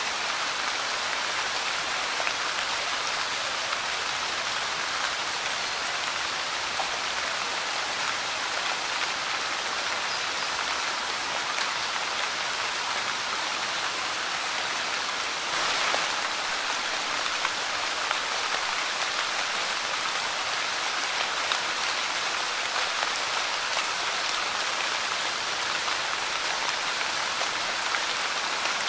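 Light rain falling steadily on a Monstera leaf: a dense, even hiss of many small drops, with a brief slight swell about halfway through.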